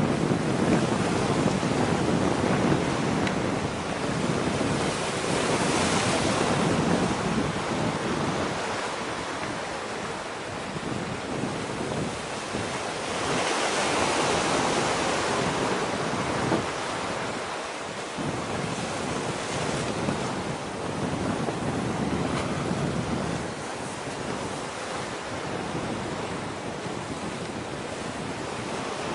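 Wind buffeting the microphone over the wash of sea waves: a steady rushing that swells about six seconds in and again around fourteen seconds.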